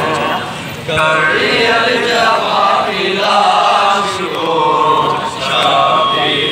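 A man chanting a noha, a Shia mourning lament, into a handheld microphone. He sings in long held phrases, with a short break just before a second in.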